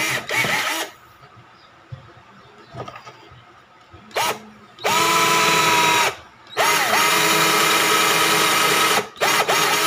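Black & Decker GC1800 18-volt cordless drill/driver boring a countersinking bit into hardwood in several bursts: a short blip about four seconds in, then two runs of steady motor whine, about one and two and a half seconds long, each climbing quickly to speed and holding, and a few short blips near the end.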